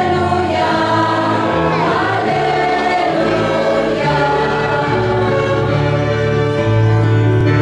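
Mixed choir singing a hymn in several parts, accompanied by violins, with steady held notes underneath.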